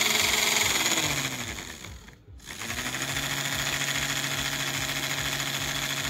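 The small electric motor of an RC toy tractor whining and spinning its gearbox with a rapid rattle; it winds down to a stop about two seconds in, then starts again and runs steadily. The gearbox gears are broken, so the motor runs but the wheel does not turn.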